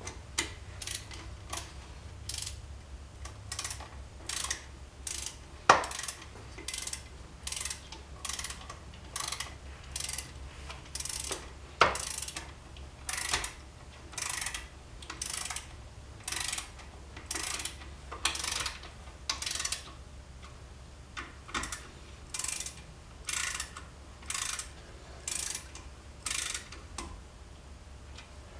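Hand socket ratchet wrench worked in repeated short strokes, its pawl clicking in a burst about once a second, with two sharper metal knocks around six and twelve seconds in.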